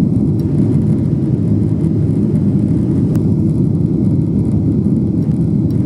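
Boeing 777-300 cabin noise during the climb after takeoff: a steady low rumble of the jet engines and rushing air, heard from inside the cabin.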